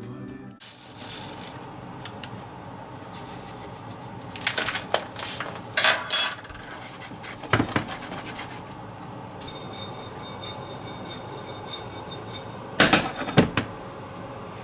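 Small seeds toasting in a dry frying pan as the pan is moved and scraped, with a light rattle and several sharp metal clinks of a utensil against the pan.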